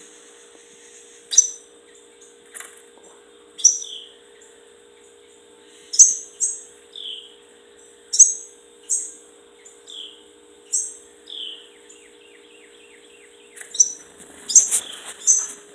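Short, high, down-sweeping chirps from fledgling birds, which the owner takes for baby finches. They come singly every second or so, then in a quick cluster near the end, over a steady low hum.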